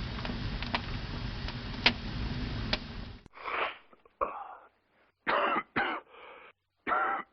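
A steady background hiss with a few faint clicks cuts off about three seconds in. A person then coughs and clears their throat in a run of about six short, separate coughs, a congested cough.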